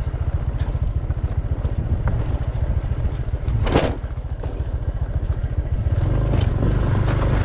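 Vehicle engine running steadily on the move, with a brief sharp knock a little under four seconds in.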